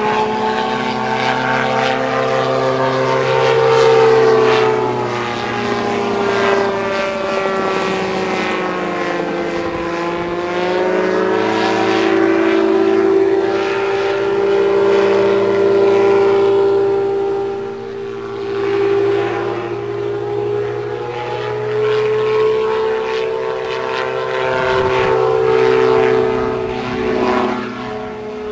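Soma gyroplane's 120 hp Yamaha snowmobile engine and propeller running in flight overhead, a loud steady pitched sound. The pitch falls about a third of the way in and climbs back, then wavers with the loudness as the gyroplane manoeuvres.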